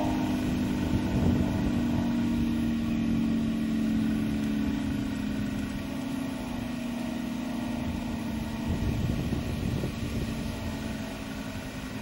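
Air raid siren winding down, its tone slowly falling in pitch and fading out.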